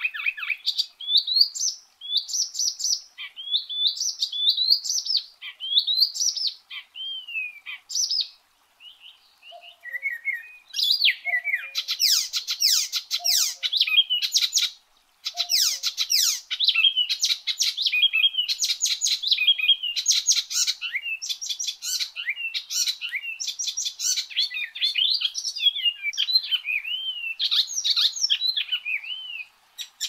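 Icterine warbler singing a loud, varied song. It opens with slurred whistled phrases, then goes into fast chattering runs of rapidly repeated notes mixed with whistles, with a couple of short breaks.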